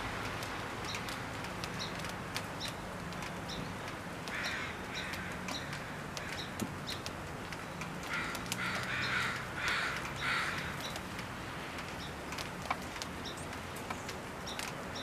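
Crows cawing: two caws about four seconds in, then a run of about four caws between eight and ten and a half seconds. A faint steady hum runs beneath them.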